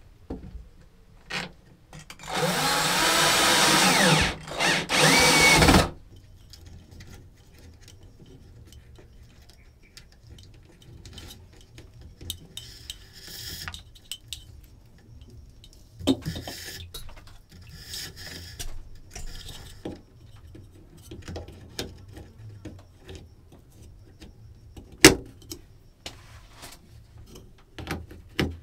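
A power drill runs in three bursts: one of about two seconds and two short ones, its motor pitch wavering. Quieter scraping and handling clicks follow.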